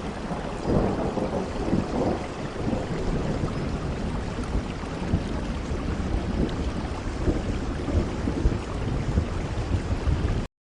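Steady heavy rain with low thunder rumbling under it, swelling about a second in. The sound cuts out to silence for a moment at the very end.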